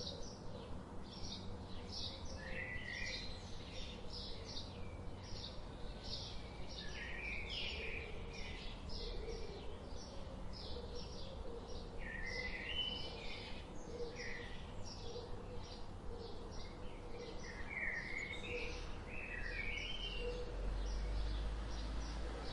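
Birds chirping steadily: a constant run of short high chirps, a few a second, with occasional lower warbling calls mixed in.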